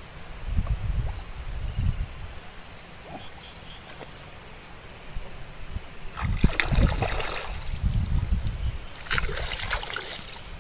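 Shallow muddy paddy water sloshing and splashing as someone wades and digs with his hands in the mud, with louder splashing about six seconds in and again about nine seconds in.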